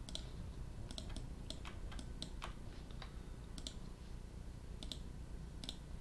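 Computer mouse and keyboard clicks as software is operated: a dozen or so short, irregular clicks, several in quick pairs, over a faint low hum.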